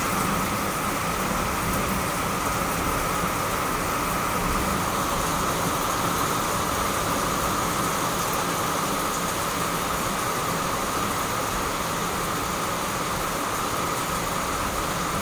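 Heavy rain falling steadily, an even hiss without breaks or single drops standing out.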